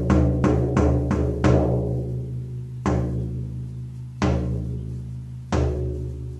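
Shamanic frame drum beaten in a steady fast pulse of about four beats a second, which stops about a second and a half in. Three slow single beats follow, each left to ring out, about a second and a half apart: the three-beat signal that the drum journey has reached its next stage.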